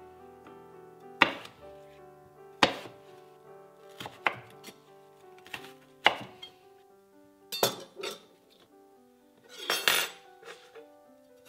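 A chef's knife cutting the rind off watermelon slices, each stroke knocking sharply on a wooden cutting board every second or two, with a longer scraping clatter near the end. Soft background music runs underneath.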